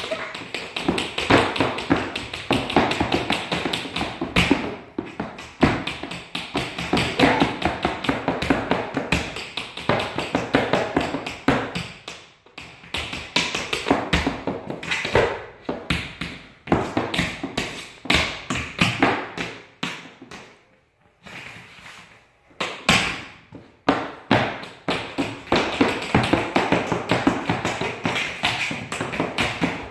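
Two children's tap shoes clattering on a hard floor in quick, irregular strings of taps and stamps. The tapping breaks off briefly about twelve seconds in and again for about two seconds around twenty seconds in.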